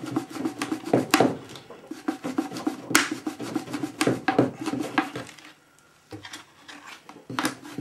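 A thin mylar strip sawn back and forth in the seam between a glass-and-epoxy moulding and its mould, rubbing in a quick rhythm of several strokes a second, with a few sharper clicks. The rubbing stops briefly a little past halfway, then starts again. This is the part being worked free of the mould.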